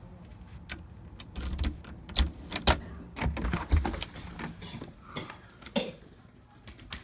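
Keys jangling and a run of sharp metal clicks as a key is worked into a door's deadbolt and turned. A few more clicks follow as the lever latch releases and the door opens.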